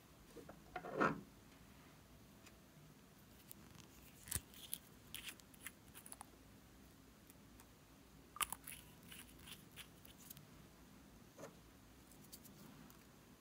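Faint, scattered clicks and taps of small cosmetic containers being handled, such as a nail polish bottle and its brush cap, with one louder brief sound about a second in.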